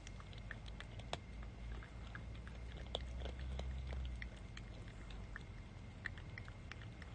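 Stray cat licking and smacking at a squeeze-tube lickable cat treat: a steady run of small, quick, wet clicks.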